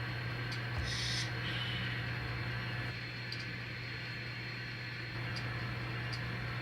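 Sound-equipped N scale model diesel locomotives running through their small onboard speakers: a steady low drone, with a short hiss about a second in.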